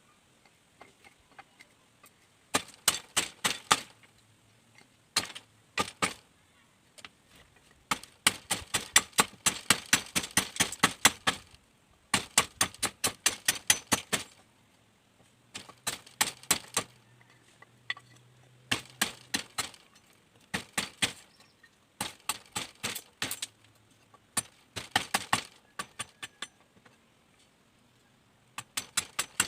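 Rapid knife strokes cutting and shaping bamboo, in quick runs of sharp clicking cuts about six to eight a second, broken by short pauses.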